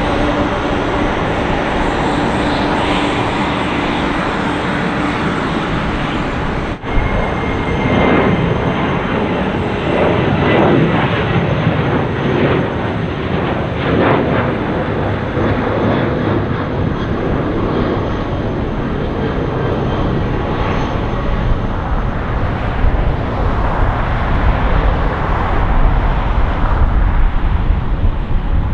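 Boeing 747 freighter's four jet engines running at taxi power as the jet moves along the taxiway: a steady, loud rumble and rush, with a brief gap about seven seconds in.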